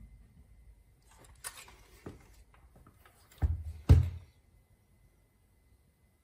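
Handling noise from equipment on a desk: a few light clicks and knocks, then two heavy low thumps about half a second apart, as the touch panel or camera is picked up and set down.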